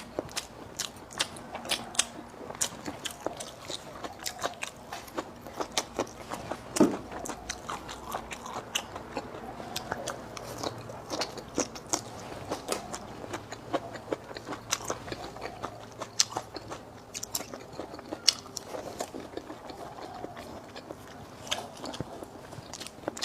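Close-miked mouth sounds of a person eating: chewing with frequent irregular wet clicks and smacks, a few louder ones about seven and eighteen seconds in.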